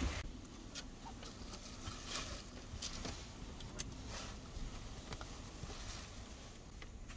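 Faint, irregular clicks and rustles of belongings being handled and moved about inside a small campervan.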